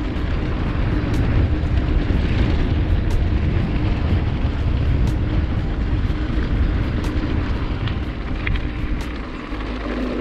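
Wind rumbling over an action camera's microphone while riding a mountain bike, mixed with the steady rush of the tyres on the track and occasional sharp ticks.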